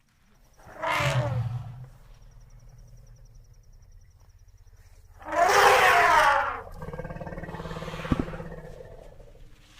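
Baby elephant calling: a short falling squeal about a second in, then a louder, longer call around five to six and a half seconds, followed by a quieter, lower call that fades out.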